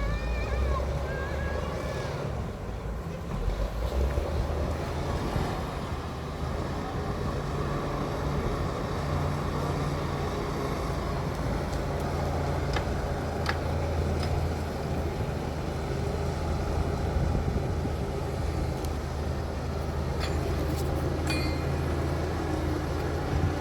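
Bulldozer's diesel engine running steadily with a low hum, with a few short sharp metallic clicks about halfway through and again later.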